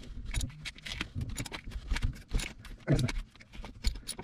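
Ratchet clicking in short, irregular runs as it turns a squeeze-type oil filter wrench to loosen an engine oil filter, with a few dull knocks of metal among the clicks.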